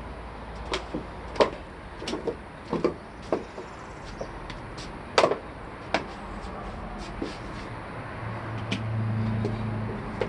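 Irregular clicks and knocks from a door being handled and from footsteps. A low steady hum comes in about eight seconds in.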